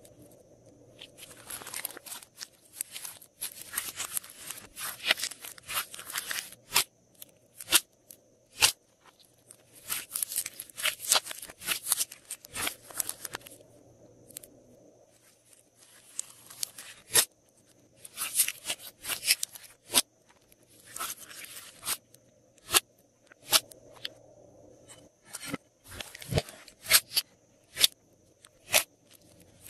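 Hands squeezing, stretching and kneading glossy slime: runs of wet crackling and sharp clicking lasting a few seconds each, with short pauses between, and scattered single pops near the end.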